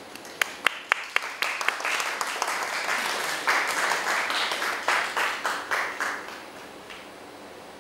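Applause: a few separate claps at first, then several seconds of steady clapping that dies away about a second before the end.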